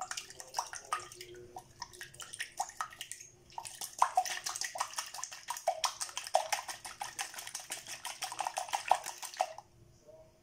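Red silicone-coated balloon whisk beating egg wash (egg, a drop of milk and caramel) in a white ceramic bowl: rapid, wet clicking strokes against the bowl. There is a short pause about three seconds in, and the whisking stops near the end.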